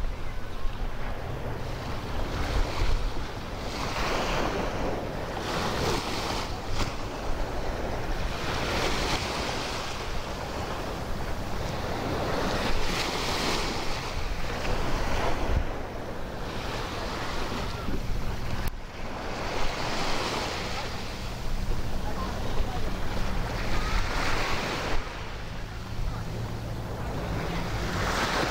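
Waves washing onto a sandy beach, swelling and falling back every few seconds, with gusts of wind on the microphone and a faint steady low hum underneath.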